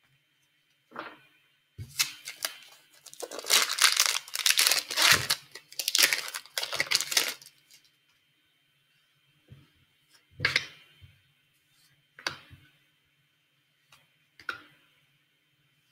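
A foil hockey card pack (2015-16 Upper Deck Series 2) is torn open with crinkling and tearing for about five seconds. Then come a few short rustles as the cards are pulled out and handled.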